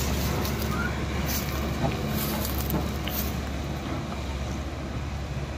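Mahindra Arjun Ultra tractor's diesel engine running steadily as it hauls two trailers heavily loaded with sugarcane, with the trailers rumbling over a dirt road. The sound slowly fades as the rig pulls away.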